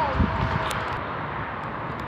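Steady outdoor background hiss, with a few soft knocks in the first second.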